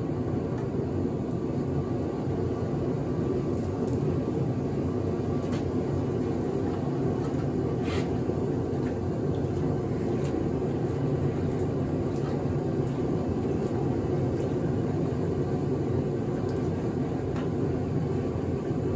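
Steady low roar of a forge furnace running, with a few faint clicks and ticks scattered through it.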